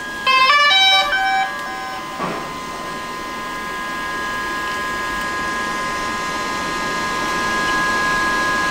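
DJI Phantom 4 Pro drone's power-on chime: a quick melody of stepped electronic beeps in the first two seconds, the sign that the drone is booting up. A click follows, over a steady high-pitched whine.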